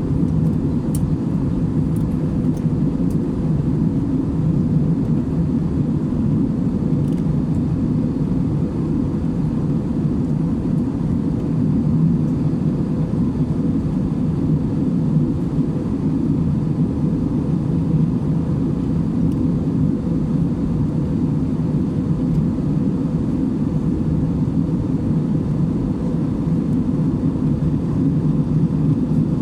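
Steady drone of an airliner's engines and airflow heard from inside the passenger cabin, with a faint constant hum on top.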